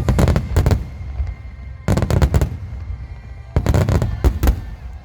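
Aerial firework shells bursting in three quick volleys about two seconds apart, each a rapid cluster of sharp bangs over a deep rumble.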